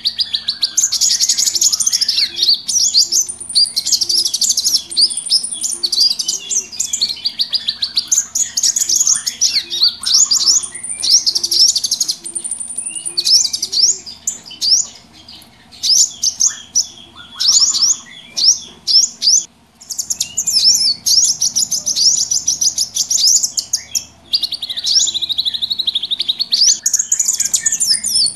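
A noisy chorus of many small birds chirping and twittering together in fast, high trills and chips, the kind of mixed small-bird recording played to lure birds. It thins briefly twice around the middle, and a faint low note repeats about twice a second underneath.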